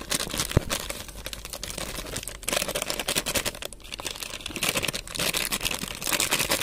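Crinkling and rustling of a spice packet as 65 masala powder is shaken out onto the cauliflower, a dense run of small crackles.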